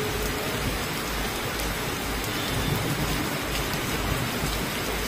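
Hail and rain falling hard: a steady, dense hiss with scattered light ticks.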